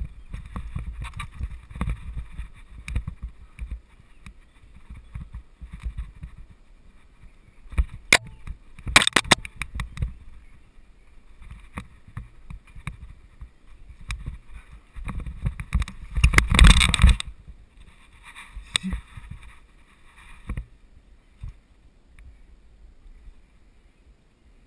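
Mountain bike rattling and rumbling over a rough, leaf-covered dirt trail, with a run of sharp knocks over bumps. About two-thirds of the way in comes a loud crash: the front tire catches a branch hidden under the leaves and the rider falls.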